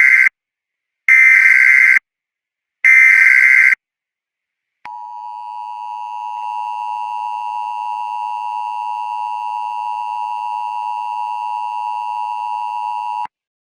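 Emergency Alert System tones: three short bursts of digital header data, the first already under way, then after about a second's pause the two-tone EAS attention signal, held steadily for about eight seconds before cutting off suddenly.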